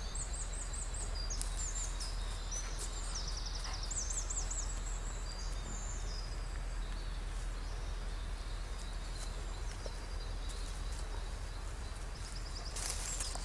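Songbirds singing in quick repeated trills over a steady low background rumble, with a burst of rustling in dry leaves near the end.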